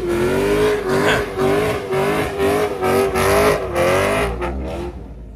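Car doing a burnout: the engine is held at high revs with its pitch wavering up and down and pulsing several times a second, while the rear tyres spin and smoke. It starts abruptly and dies away about five seconds in.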